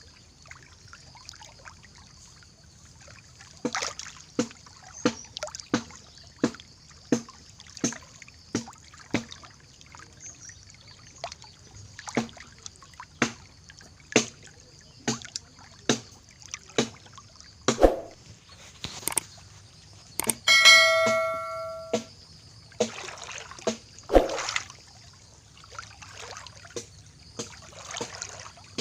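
Floodwater trickling and pouring, under a steady run of sharp clicks about one and a half per second, with a brief ringing tone near the middle.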